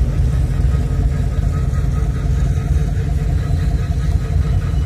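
2TE10Ut diesel locomotive idling: a steady, loud low rumble.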